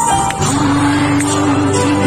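Live band music played through a concert PA: a female vocalist with electric guitar, bass and drums. After a brief dip, a long held sung note begins about half a second in and carries on over the band.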